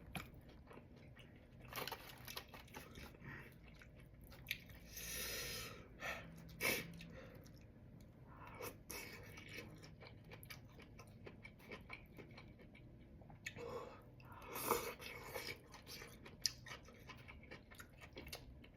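A person chewing and crunching food close to the microphone, with many small irregular mouth clicks. There are a few louder moments about five seconds in and again around fifteen seconds.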